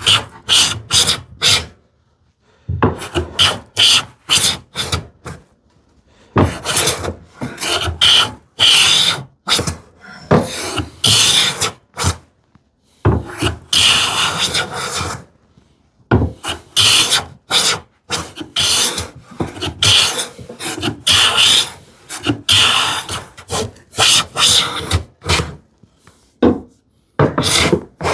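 Hand plane being pushed along the edge of a poplar board, a run of short shaving strokes in quick clusters with brief pauses between them. The edge is being jointed to take out a dip so that two boards meet without gaps.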